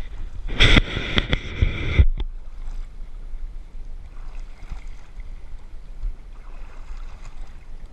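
Water splashing and knocking against a boat's hull as a large striped bass thrashes beside it while being grabbed by hand, loudest in a burst from about half a second to two seconds in, then wind on the microphone and lapping water.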